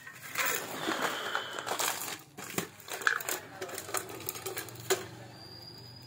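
Rustling and handling noise, then a string of sharp metallic clicks and clinks as tools and parts are handled during refrigerator compressor work.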